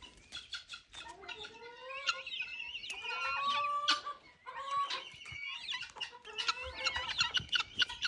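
Helmeted guineafowl calling: a fast clicking chatter mixed with repeated rising-and-falling calls.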